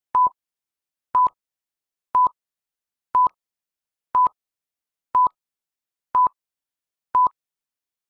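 Short electronic beeps at one steady pitch, one each second, eight in all: a quiz timer counting off the seconds.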